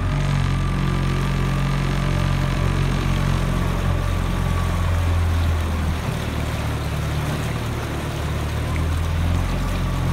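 2017 Yamaha 20 hp two-cylinder four-stroke outboard motor running steadily under way, pushing a small aluminium boat, with the churn of water at the stern.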